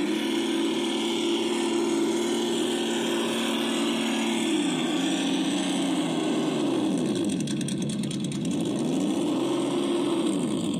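Electric motor and gears of a 1/10-scale RC rock crawler whining as it climbs over rocky dirt. The pitch holds steady for the first few seconds, then falls and rises again several times as the throttle changes.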